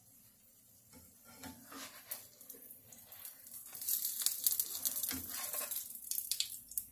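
Pancake frying in a hot, oiled pan: a crackling sizzle with spatula clicks and scrapes, getting much louder about four seconds in and dying down near the end.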